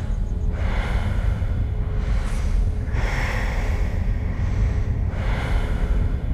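Heavy, slow breathing, each breath swelling and fading over about two seconds, over a steady low rumble.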